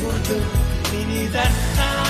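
Music: a Mongolian pop song with a steady beat.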